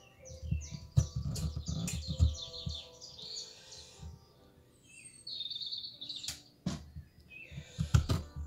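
Metal spoon scraping the stringy flesh from inside a halved acorn squash, in repeated squeaky scrapes with low thuds of the squash shifting on the counter, and a few sharp clicks of the spoon against the shell.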